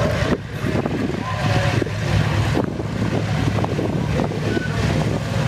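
Boeing B-29 Superfortress's four Wright R-3350 radial engines running at taxi power, a steady low drone. Wind buffets the microphone over it.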